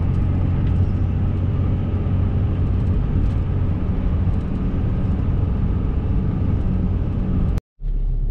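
Steady road and engine drone inside a diesel pickup's cab at highway speed, with a low hum. Near the end it cuts off abruptly and gives way to a lower, steady hum.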